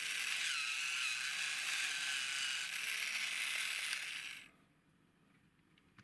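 Plastic toy jeep's geared motor whirring as its wheels spin freely in the air, with a wavering pitch; the whir stops about four and a half seconds in, followed by a few faint clicks.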